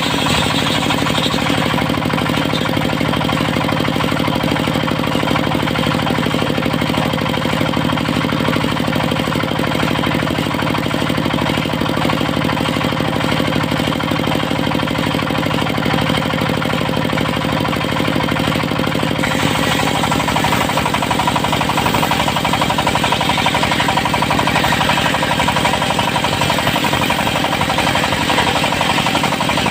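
Diesel engine of a mobile circular-saw sawmill running steadily with a fast, even knocking beat. About two-thirds of the way through, a brighter, higher sound rises over it.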